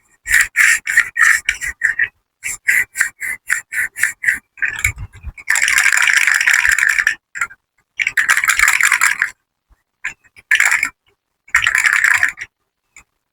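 Crisp, rapid clicking, about four to five clicks a second, then several longer bursts of dense crackling, the longest about a second and a half, typical of close-miked ASMR handling of crunchy material.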